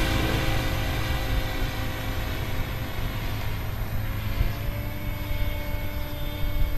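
Henseleit rigid-rotor radio-controlled model helicopter flying high and fast, heard as a steady hum of rotor and motor tones. Its pitch rises slightly about four seconds in.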